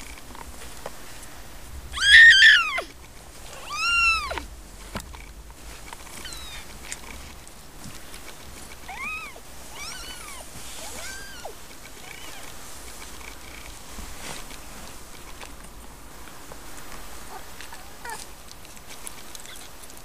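Siamese cats mewing: short high-pitched calls that rise and then fall in pitch. Two loud mews come about two and four seconds in, fainter ones follow around nine to twelve seconds, and a last faint one comes near the end.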